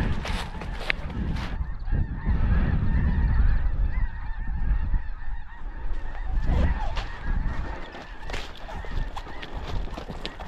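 A large flock of snow geese calling continuously, a dense clamour of honks, with wind buffeting the microphone in a low rumble.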